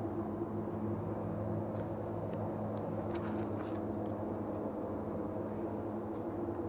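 Steady road noise inside a moving light truck: the rumble of 205/65R16 Bridgestone light-truck tyres on the road, with a constant low engine hum and a few faint ticks about halfway through.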